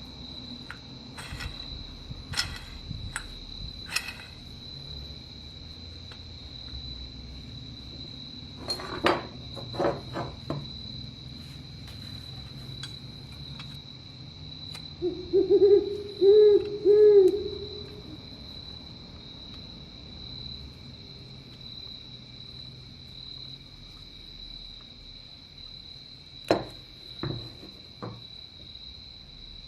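Steady high insect trill, like crickets, with scattered sharp clicks and taps. About halfway comes a short run of four low hooting notes, the loudest sound.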